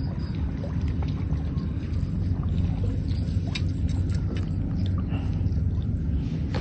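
An engine running steadily at an even pace, giving a low hum, with a few faint clicks in the middle.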